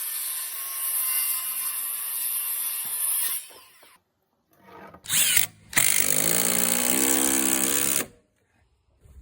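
Makita 40V XGT cordless impact driver driving a GRK RSS structural screw (5/16 x 3-1/8) into wood in bursts: one run of about three seconds that stops, a short blip near five seconds, then another two-second run that cuts off about eight seconds in.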